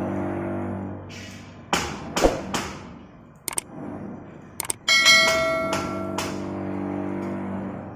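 Sand-lifting hoist machine with its motor humming, interrupted by several sharp metal knocks. About five seconds in comes one loud metal clang that rings on for about a second.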